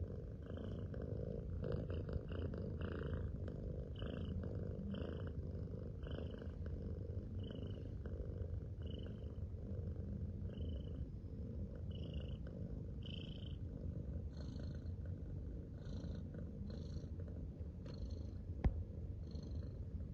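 A cat purring: a steady low rumble, with faint short high-pitched squeaks about once a second and a single sharp click near the end.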